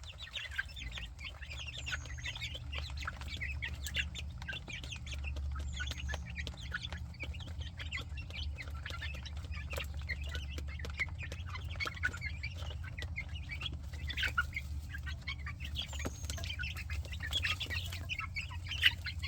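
A flock of chickens clucking continuously as they feed, many short overlapping calls, over a steady low hum.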